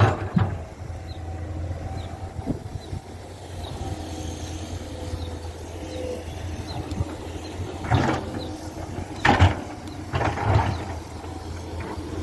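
Tracked excavator's diesel engine running steadily with a low hum and a faint hydraulic whine. There are loud knocks and clatters right at the start and three more from about eight seconds in, as the machine handles boulders.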